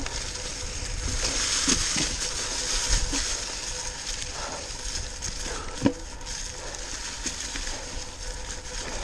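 Mountain bike tyres rolling over a trail of dry fallen leaves, a steady crunching rustle with small clicks and rattles from the bike, and one sharp knock about six seconds in.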